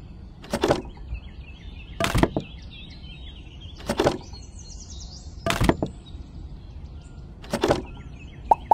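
Peeled wooden sticks clacking against one another as they are picked up from a pile one at a time: five short knocks, about one every one and a half to two seconds. Faint birdsong runs underneath.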